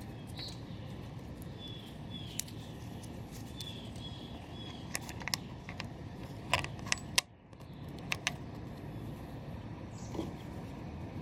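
Scattered sharp metallic clicks and clinks of tools and reel-mower parts being handled, over steady background noise that drops out briefly about seven seconds in.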